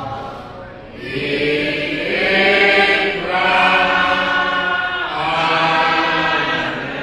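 A male voice, the priest's, singing a slow chant in long held notes, in three phrases with a short break before each.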